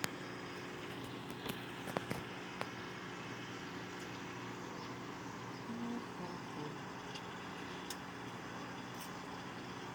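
Hamilton Beach microwave oven running while it cooks bacon: a steady electrical hum, with a few faint clicks.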